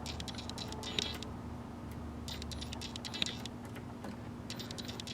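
Light, irregular clicks and ticks in small clusters from a Singer Touch and Sew 750 sewing machine's mechanism being worked by hand, over a faint steady hum.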